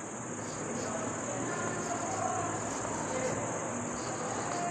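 Steady high-pitched chirring of crickets, over a low hiss of room noise.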